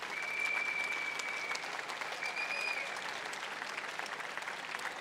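A protest crowd applauding, many hands clapping at once, with a high, steady whistle held for about a second and a half near the start and a shorter one just after.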